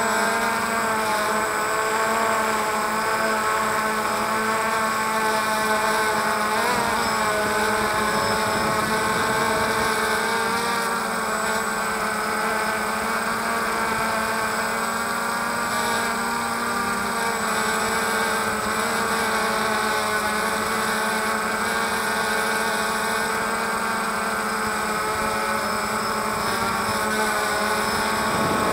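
A DJI Phantom quadcopter's motors and propellers whining steadily in flight, heard close up from a camera on the drone itself. The pitch wavers briefly about seven seconds in.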